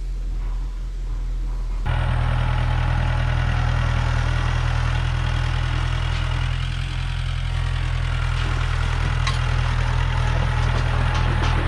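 A motor running steadily with a low hum, stepping up abruptly to a louder, fuller running sound about two seconds in.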